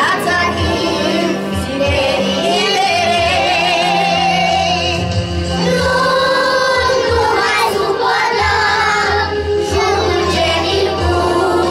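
A group of young children singing a song together in chorus, with music playing along.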